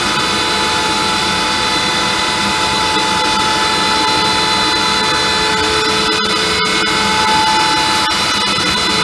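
Felder AD741 combination jointer/planer with a Byrd Shelix helical cutterhead running, a loud steady machine noise with several high whining tones over it.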